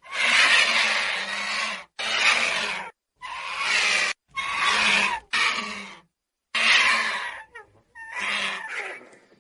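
Vulture giving a series of about seven harsh, raspy hissing calls, each cut off sharply with short silences between.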